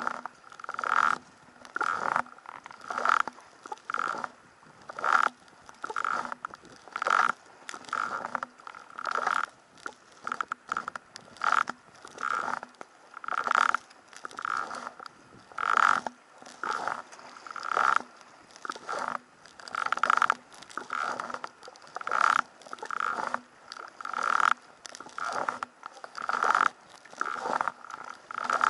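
Steady sea kayak paddling with a double-bladed paddle: the blades splash and pull through choppy sea water on alternate sides, about one stroke a second, in an even rhythm.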